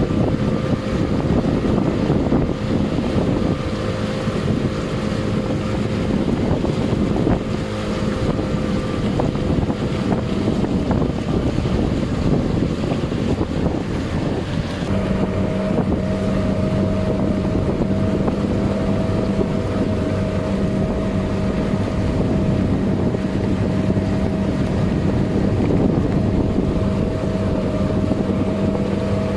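Boat engine running steadily under way, with wind buffeting the microphone. About halfway through, the engine note steps up a little and holds there.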